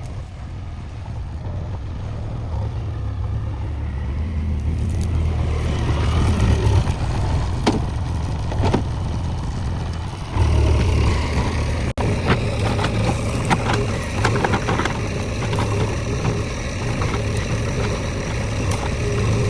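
JCB 3DX backhoe loader's diesel engine running under load, growing louder and stepping up about halfway through, with scattered sharp cracks and scraping from then on.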